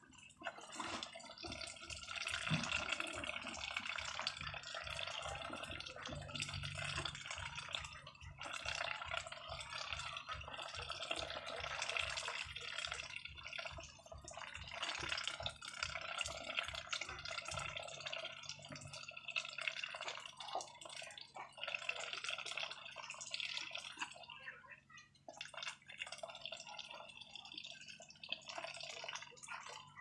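Domestic ducks dabbling wet feed from metal bowls: a steady, busy mix of wet slurping, splashing and quick clicks of their bills.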